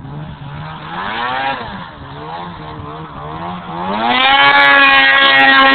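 Two-stroke engine of a 2008 Ski-Doo MXZ Renegade 600 snowmobile running at low revs, with a short rev about a second in. About three and a half seconds in it climbs to high revs and holds there, loud, as the sled pulls away across the snow.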